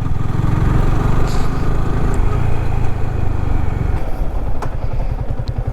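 Motorcycle engine running under the rider. About four seconds in it drops to a slower, even beat of separate firing pulses, as at low revs or idle.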